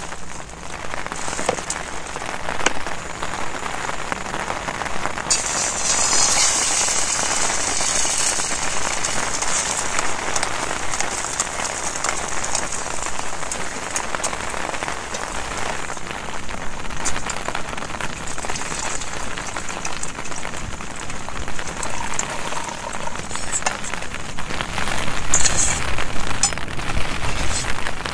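Heavy rain falling on a tent, a steady hiss throughout, growing louder and hissier from about five seconds in until about sixteen seconds.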